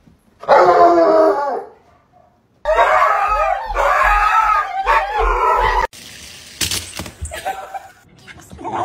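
Dog howling in two drawn-out cries that rise and fall in pitch, a short one and then a longer one of about three seconds, followed by a few soft knocks.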